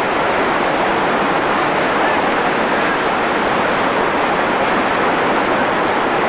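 Steady rushing of a river's running water: an even noise that holds at one level, with no strokes or breaks.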